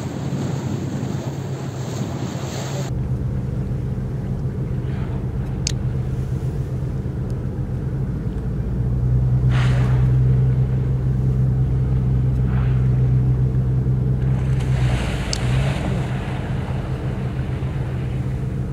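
A boat's engine running with a steady low drone, louder for several seconds in the middle. Over it are a few short whooshes. At the start there is wind and rushing water, which stops abruptly about three seconds in.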